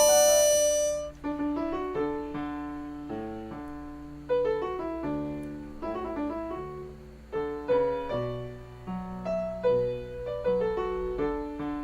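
A harmonica holds a long note that ends about a second in, then a piano accompaniment plays an instrumental interlude of struck notes and chords, each note fading after it is played.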